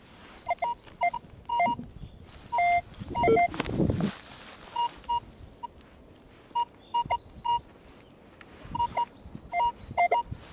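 Minelab X-Terra 705 metal detector giving short beeps at two pitches, in quick clusters of two to four, as the coil is swept over a dug hole. It is signalling a shallow non-ferrous target, a copper coin. A scuffing rustle sits under the beeps about three to four seconds in.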